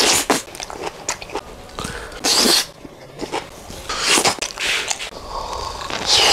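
A man huffing sharp breaths out through an open mouth while chewing a mouthful of satay, panting against the chili heat of spicy satay. Three loud, hissy gusts come about two seconds apart, over fainter mouth noises.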